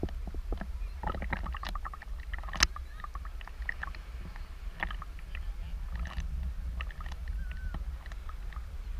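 Seawater lapping and sloshing around a camera bobbing at the surface, heard as a steady low rumble with many small scattered clicks and splashes.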